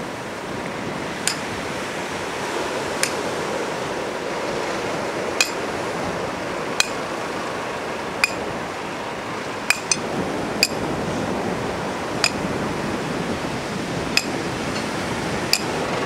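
Sledgehammer driving steel stakes to pin down roll-out beach matting: about a dozen sharp, ringing metallic strikes, one every second or two, over steady surf.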